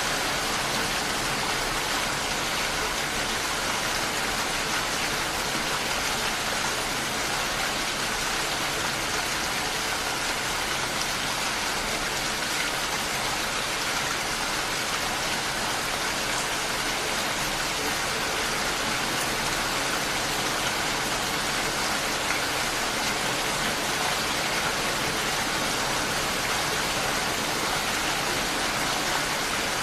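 Steady rain falling, an even unbroken hiss of rainfall.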